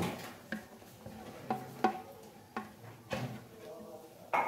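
Light taps and scrapes of a bowl against a non-stick frying pan as grated boiled potato is knocked out into it: about half a dozen short, irregularly spaced knocks.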